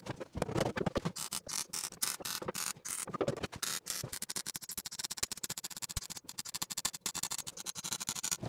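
Wire-feed (MIG) welder crackling as short spot and stitch welds are laid into thin sheet metal, a fast irregular crackle with brief breaks between welds.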